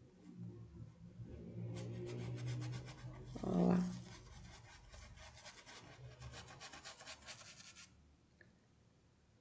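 Paintbrush dabbing white paint onto a fabric tea towel: a rapid run of scratchy taps of the bristles against the cloth from about two seconds in until about eight seconds in. A short, louder low-pitched sound cuts in about three and a half seconds in.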